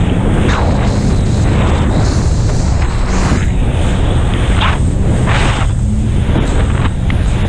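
Jet ski running on open water, its engine drone buried under heavy wind buffeting on the microphone, with several short splashes of spray as the hull crosses waves.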